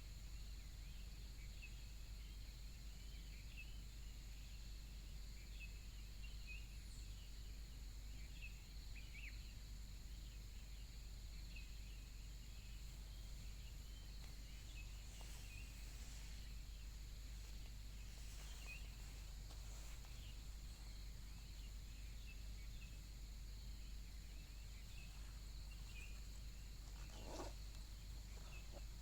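Faint outdoor insect chorus: steady high trills with many small scattered chirps over a low, constant hum. One short, sharp sound comes near the end.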